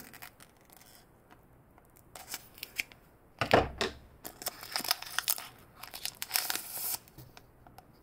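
Snips cutting open the foil wrapper of a Pokémon TCG booster pack. A few clicks of the blades start about two seconds in, a louder cut comes halfway through, and then the foil crinkles and tears as it is pulled open.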